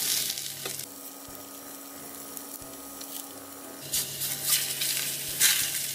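Salmon fillets sizzling in hot oil in a stainless steel frying pan, with clicks of metal tongs and a spatula against the pan as the fish is turned. The sizzle drops to a quieter stretch with a faint steady hum from about one to four seconds in, then comes back.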